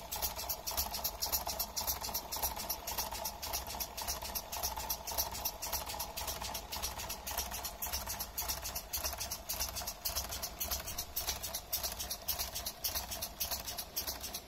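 Lego pneumatic steam locomotive running, its air cylinders puffing in a rapid, even rhythm over a steady hum and a low rumble.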